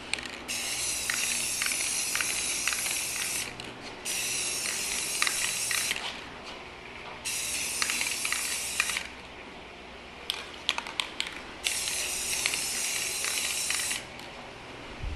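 Aerosol spray can of gloss clear coat spraying in four hissing bursts of two to three seconds each, laying on a first light coat, with a few sharp clicks in the pauses between bursts.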